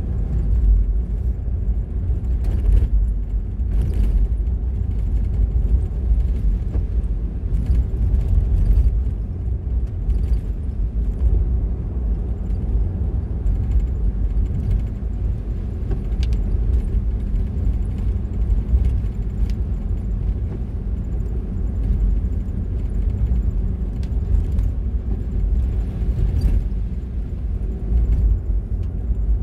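Car driving along a road: a steady low rumble of engine and tyre noise, with occasional faint clicks.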